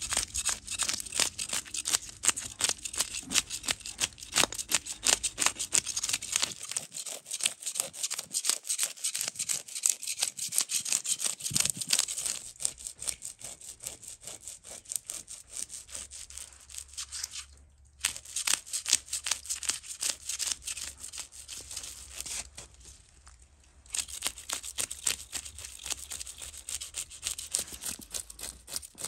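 Fish scales being scraped off a large raw fish with a scaling tool, many quick rasping strokes a second in a continuous run, with two short pauses in the second half.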